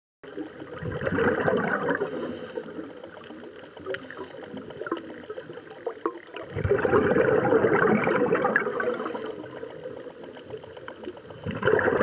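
Scuba regulator exhaust bubbling underwater: three bursts of bubbles about five seconds apart, one per exhaled breath, with quieter gaps between.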